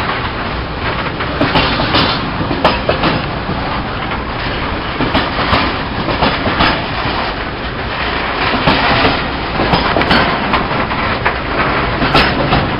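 Open box wagons of a Network Rail engineering train rolling past close by: a steady, loud rumble of steel wheels on rail with irregular sharp clicks as the wheels cross rail joints and points.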